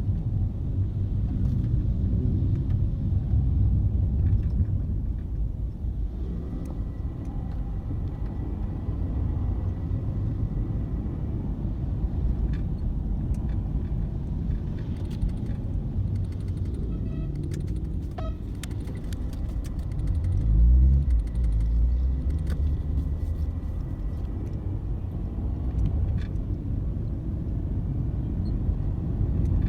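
Steady low rumble of passing road traffic, with a louder surge about twenty-one seconds in and a few light clicks.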